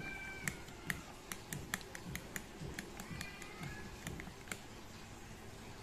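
Metal spoon clinking against a ceramic bowl while beating a runny egg-and-flour batter with carrot and spring onion: about three taps a second over a soft wet swish. The tapping stops about four and a half seconds in.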